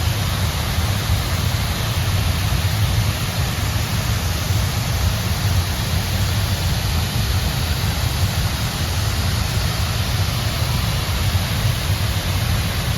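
Waterfall's water falling and rushing as a steady, unbroken noise with a heavy low rumble.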